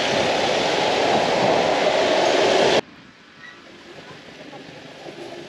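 Busy road traffic, a loud steady rush of passing vehicles, cuts off suddenly about three seconds in to a much quieter street background.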